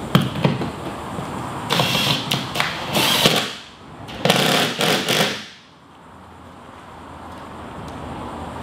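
Cordless power driver running in about four short bursts, driving a bolt to fasten a climbing hold to the wall; it stops after about five seconds.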